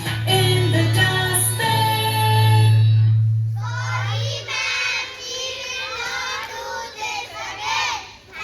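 Backing music with held chords ends about three seconds in, and a group of children's voices then sings.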